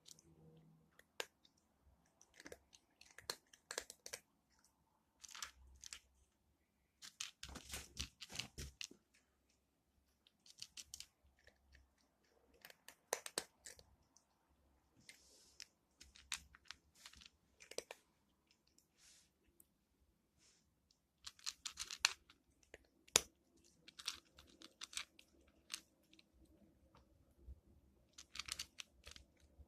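Cat crunching dry kibble, in bursts of crisp crunches a second or two long with short pauses between them; the loudest crunches come a little past the middle.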